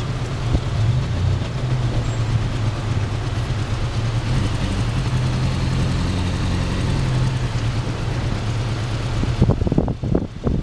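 A car's engine and road noise, a steady low hum while driving. Near the end, a few gusts of wind buffet the microphone.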